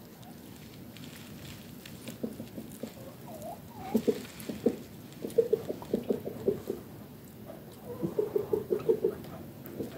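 Chickens foraging at close range, with runs of quick, short, low-pitched sounds about four seconds in, again around six seconds and once more near eight to nine seconds. A short wavering call comes just before the first run.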